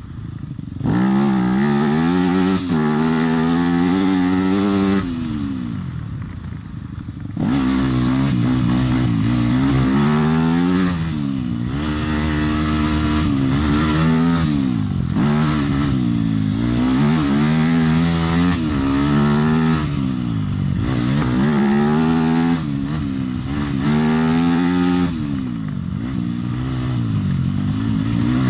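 Yamaha YZ250FX dirt bike's four-stroke single-cylinder engine under way, the throttle opened and closed over and over so the pitch keeps rising and falling. About five seconds in the throttle shuts and the engine drops to a quieter coast for a couple of seconds before pulling again.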